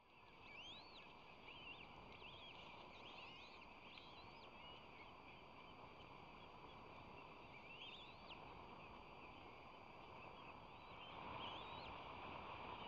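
Osprey nestlings peeping: short, high, arched chirps, some in quick runs, faint over steady background noise that grows a little louder near the end.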